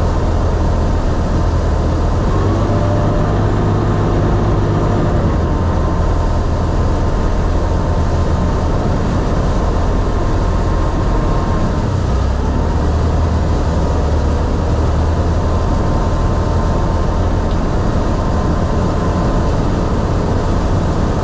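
Sherp amphibious ATV's diesel engine running steadily with a deep drone while the vehicle swims on the bay.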